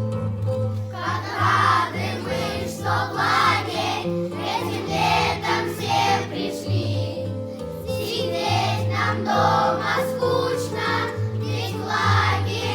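A group of children singing a song together in unison over strummed acoustic guitar; the voices come in about a second in.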